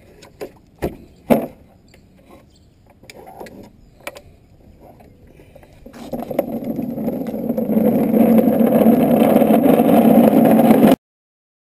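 A few sharp knocks as the tail stand is lifted from under the aircraft's tail. Then the stand is tipped back and rolled across asphalt: a rough rolling rumble that builds about six seconds in, holds steady, and cuts off abruptly near the end.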